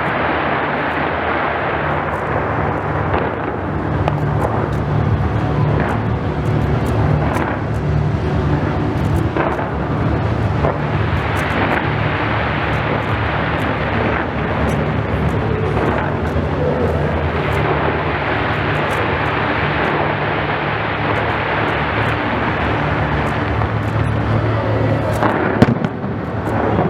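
Fireworks display firing continuously: a dense, loud wash of booming bursts with many sharp crackles and pops on top, and one especially sharp bang near the end.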